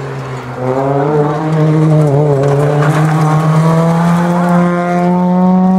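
Suzuki Swift rally car's engine accelerating hard at full throttle as it comes past close by. The note dips briefly about half a second in, then climbs steadily in pitch.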